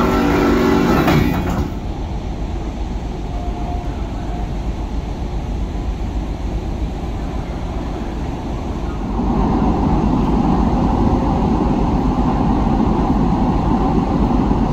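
Steady low rumble of a large car ferry's engines and machinery, heard from the open deck as the ship gets under way. About nine seconds in it becomes louder and fuller.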